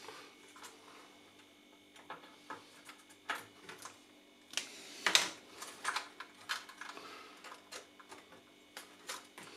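Irregular light clicks and taps of hands working on parts inside an opened stereo amplifier, the loudest about halfway through, over a faint steady hum.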